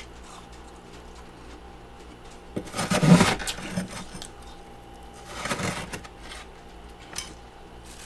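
Metal spoon scraping and scooping powdery frost buildup off a freezer compartment's wall, twice: a louder crunching scrape about three seconds in and a shorter one a couple of seconds later, with a few light clinks.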